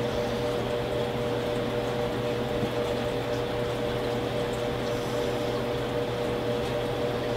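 A steady mechanical hum, like a running fan or air-conditioning unit, with two steady mid-pitched tones and a low drone that do not change.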